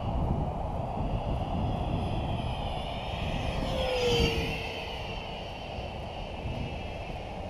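Electric ducted fan of an FMS 70 mm F-16 RC jet (ten-blade fan on a 4S battery) whining in flight, its pitch swooping up and down as the jet moves about. The loudest pass comes about four seconds in, with the pitch falling as it goes by.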